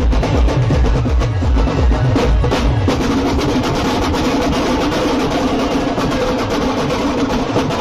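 Adivasi timli band drums played by a group of drummers with sticks: large steel-shelled bass drums and slung side drums beating together. A heavy, even bass beat gives way about three seconds in to fast, dense rolling strokes.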